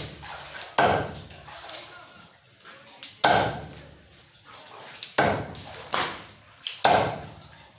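Cleaver chopping through a goat leg on a chopping block: five heavy chops at uneven intervals, each fading quickly.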